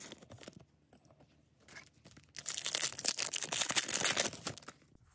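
A Disney Lorcana booster pack's foil wrapper being handled and torn open by hand. It starts with light crinkles, then about halfway through comes a dense, crackling tear that lasts until near the end.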